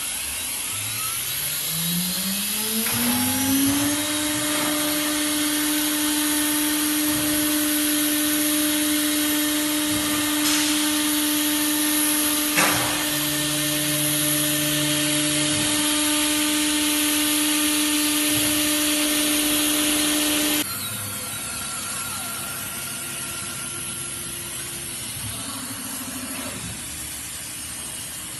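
Spindle of a small ATC CNC router for aluminium engraving speeding up as a rising whine over the first few seconds, then holding a steady high whine over a constant hiss. There is a sharp click near the middle. The whine cuts off suddenly about three quarters of the way through, leaving the hiss.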